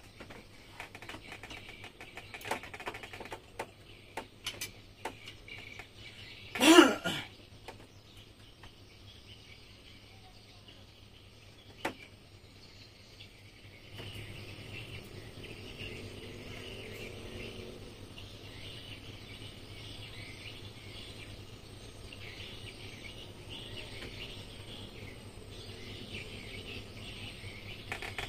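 Small metal clicks and taps as outboard gearbox parts are handled. About seven seconds in there is one loud squeal lasting about half a second. From about halfway through, steady bird and insect chirping goes on in the background.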